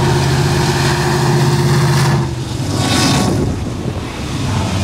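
Diesel freight locomotive coming under the bridge, its engine running with a steady low drone that cuts off about two seconds in. A brief whoosh of noise follows about three seconds in as it passes beneath.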